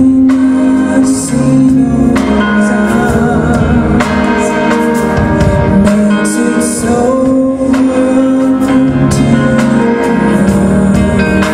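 A live band plays a song with a singer over sustained chords, at a steady, loud level.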